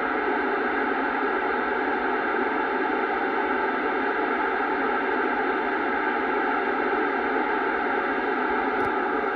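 Steady, loud hiss of FM receiver noise from a Kenwood TS-790 transceiver tuned to the ISS downlink on 145.800 MHz. The station's transmission has just ended, and with no signal coming in the receiver passes only static.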